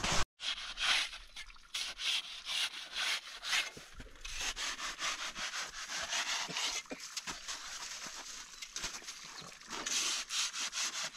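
Coarse, icy snow being dug with a small metal-headed hand pick and scooped by hand: a quick run of crunching, scraping strokes.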